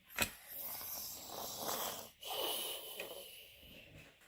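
Handling noise from plastic anatomy-model toy pieces: a sharp click, then a few seconds of rustling with a short break about two seconds in.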